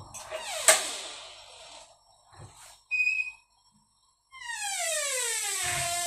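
A door swinging shut under a Rutland door closer: a click about half a second in, a brief high chirp about three seconds in, then from about four seconds a long squeal that falls steadily in pitch as the door closes.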